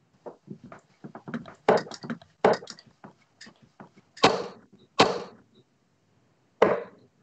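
Darts striking a bristle dartboard: three sharp thuds in the second half, the first two less than a second apart, after a run of lighter clicks and knocks.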